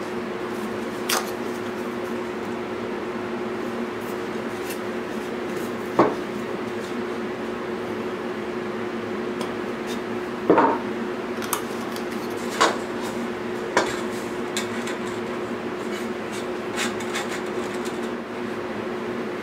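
Scattered sharp clanks and knocks of tools or metal parts being handled and set down, over a steady low hum.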